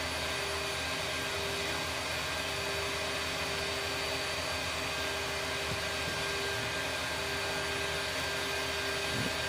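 Steady whirring machine noise: a constant hiss carrying a few unchanging whining tones, with no change in level.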